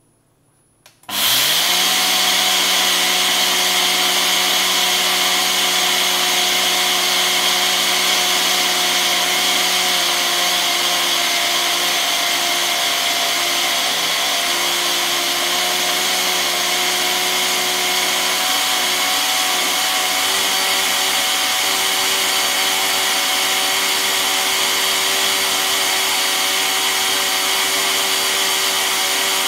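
Ninja Auto-iQ personal blender starting about a second in and then running steadily, its motor whine overlaid by the hiss of whole coriander seeds being ground to powder.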